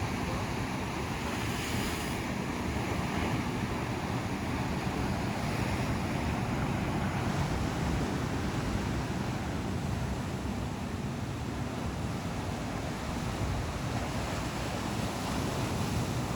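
Ocean surf washing onto the shore in a steady, continuous rush, with wind on the microphone.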